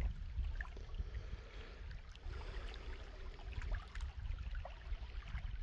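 Lakeside ambience: an uneven low rumble of wind on the microphone, with a faint hiss of water lapping at the shore.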